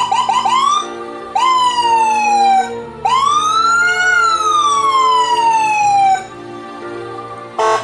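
Locally made Whelen-style electronic siren running through its tones: a quick run of rising chirps, then a falling sweep, then a slow rise and long falling wail. A short buzzing horn-like blast starts right at the end.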